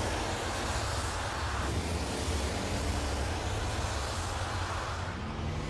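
Audi e-tron Spyder concept car driving: steady road and wind noise with a low hum that steps up in pitch about five seconds in.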